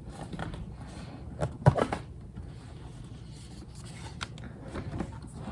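Handling noises on a plastic Xbox mini fridge: rubbing and scraping, with a quick cluster of sharp clicks and knocks about a second and a half in as it is handled and opened.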